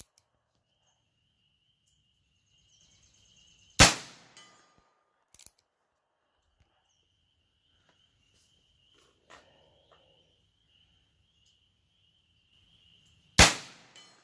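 Two gunshots from a Heritage Rough Rider .22 LR single-action revolver, about ten seconds apart. Each is a sharp crack with a short echo trailing off.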